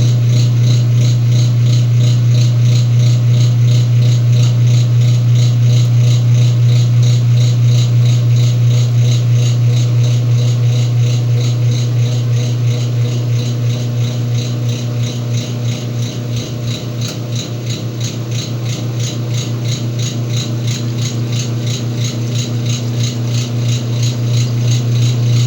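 Whirlpool washing machine running through its wash cycle: a steady motor hum with a rapid, even mechanical rattle. It gets a little quieter in the middle and then comes back up.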